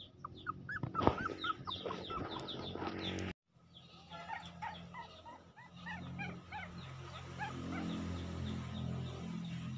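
High, quick chirps and squeaks from small animals, several a second, over a low steady hum; the sound drops out for a moment about three seconds in.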